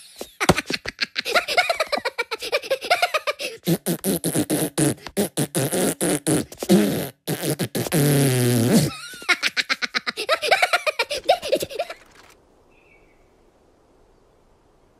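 Cartoon Minion voice laughing and blowing raspberries, a fast run of wet sputtering bursts and giggles that cuts off about three seconds before the end.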